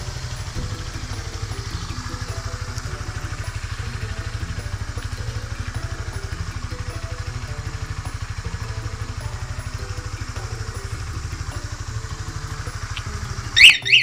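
Honda RS150R's single-cylinder engine idling with a steady, even low pulse. Near the end a brief, loud, high-pitched chirp cuts in and the engine sound stops.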